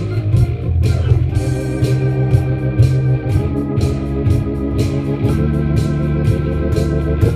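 Jazz improvisation: held organ chords changing about every two seconds, over a bass line and a steady drum and cymbal beat.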